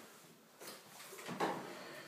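Wooden chairs being shifted on a wooden floor: faint scrapes and a light knock, the clearest about a second and a half in.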